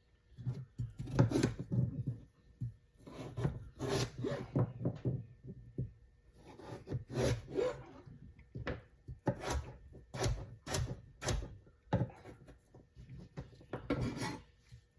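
Kitchen knife cutting a large carrot into chunks on a cutting board: a series of about fifteen cuts at irregular intervals, each a short scrape through the carrot ending in a knock of the blade on the board.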